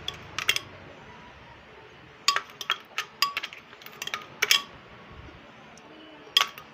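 Metal spoon clinking against a glass container as ground peanuts are knocked out into a bowl: a dozen or so sharp ringing taps in short clusters, with the last single tap near the end.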